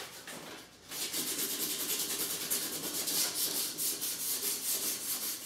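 Sandpaper worked by hand over an undercoated bicycle frame: quick, even back-and-forth rubbing strokes that start about a second in and run on steadily.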